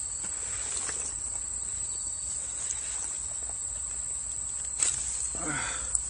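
Steady high-pitched chirring of crickets and other night insects, with a couple of sharp clicks near the end.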